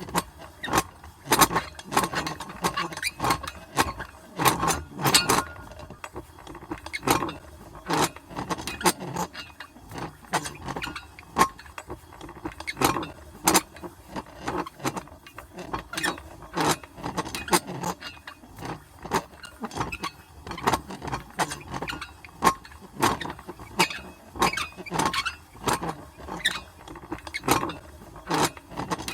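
Old metal hand crank being turned at medium speed, giving a continuous, uneven run of metallic clanks and clicks, several a second.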